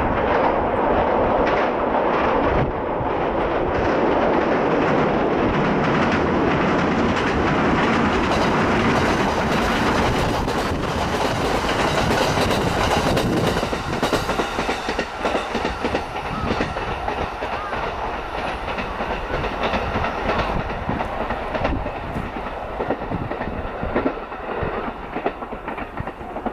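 JR Mito Line electric train passing close by, its wheels clicking over the rail joints, with heavy wind noise on the microphone. The dense rumble thins out about halfway through into separate wheel clicks.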